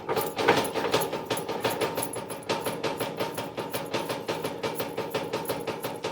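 Rapid, irregular knocking and rattling, several knocks a second throughout.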